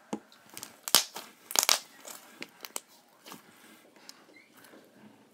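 Pink slime being stretched and squeezed by hand, giving a string of sharp clicks and pops, the loudest about a second in and again a little later.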